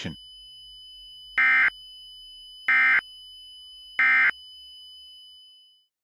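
Three short, loud buzzing bursts of Emergency Alert System SAME digital data, evenly spaced about a second and a half apart: the end-of-message code that closes a NOAA Weather Radio alert. A faint steady hum lies underneath and fades out near the end.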